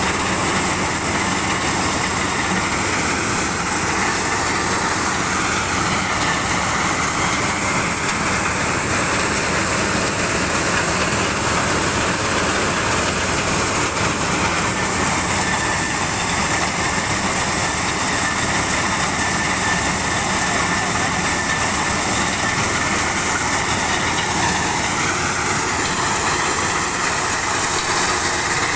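Tractor-driven maize thresher running steadily: a constant loud mechanical din from the tractor engine and the spinning threshing drum, with a faint whine that wavers a little in pitch.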